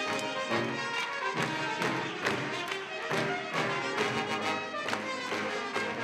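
Live concert music from a percussion ensemble, many quick struck notes with a pitched, marimba-like ring and drum hits.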